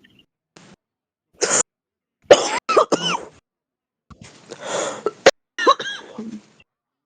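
A heavy smoker coughing in a fit: a single hard cough, then a quick run of three or four coughs, a longer rough stretch, and a few more coughs near the end.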